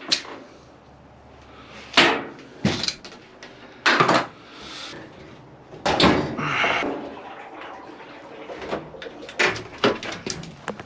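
Clunks and knocks of a suspension rod being fitted into a Whirlpool washing machine, metal parts striking the cabinet. There are several sharp knocks a second or two apart, then a quick run of smaller clicks near the end.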